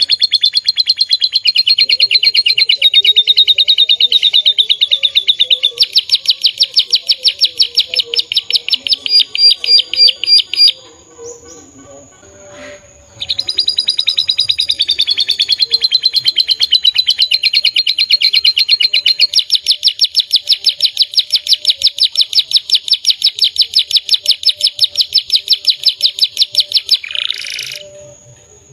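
Domestic canary singing: long, fast trills of rapidly repeated high notes, broken by a short pause about eleven seconds in, with a harsher buzzy note near the end.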